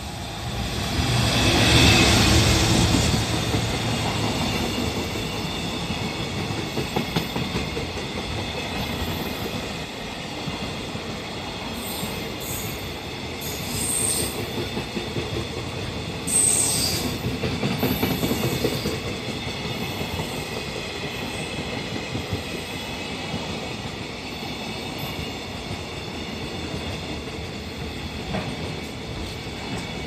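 A JR Freight container train hauled by an EF210 electric locomotive passing close by. The locomotive goes by first and is loudest about two seconds in. A long line of container flatcars then rumbles past, with wheels clicking over the rail joints and a few brief high wheel squeals around the middle.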